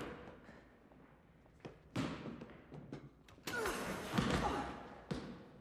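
A basketball bouncing hard on a floor, then a slam dunk about three and a half seconds in: the rim and net clatter for about a second. The ball lands and bounces once more near the end.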